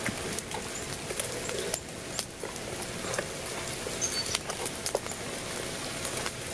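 Rain pattering on a tarp shelter overhead, mixed with irregular light clicks and crinkles of spoons working in foil meal pouches.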